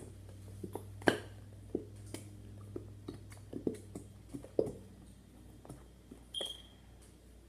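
Scattered light clicks, taps and knocks of containers and utensils being handled while mixing slime, irregular and a second or less apart, over a low steady hum.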